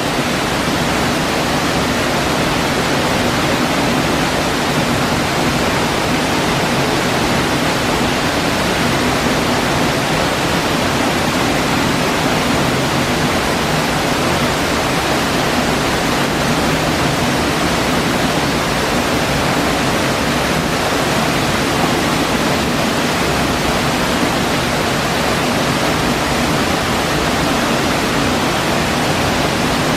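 Waterfall pouring into a pool: a loud, steady rushing of falling water.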